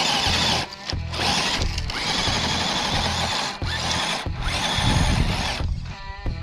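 Axial SCX10 III RC crawler's electric motor and drivetrain whirring under load as its tyres spin and dig into loose dirt. It comes in several bursts of throttle with short breaks between them, over background music with a steady beat.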